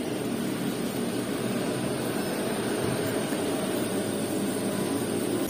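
A steady, even rushing background noise with no distinct knocks or clicks.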